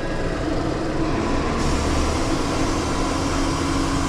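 Tow truck's engine and hydraulic bed running steadily while a vehicle is unloaded, a continuous mechanical drone with a held humming tone.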